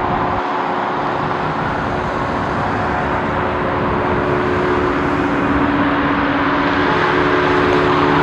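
Jet airliner engines, a steady rushing noise with a low droning hum, growing slightly louder near the end.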